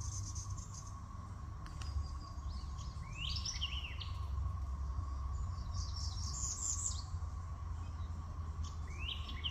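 Wild birds calling: a few short chirping phrases, one about three seconds in, another around six seconds and a third near the end, over a faint steady hum and low rumble.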